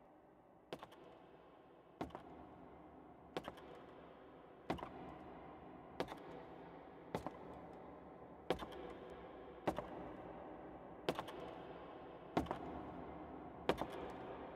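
A slow, even series of sharp clacks, about one every second and a quarter, each with a short rattle after it, over a faint background hum that slowly grows louder.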